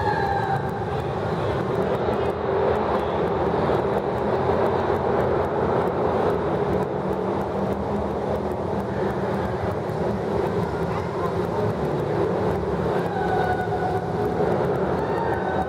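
Steady rushing noise inside a road tunnel while a group of road bicycles rides through, with the echo of the tunnel around it. A short held tone sounds over it about thirteen seconds in.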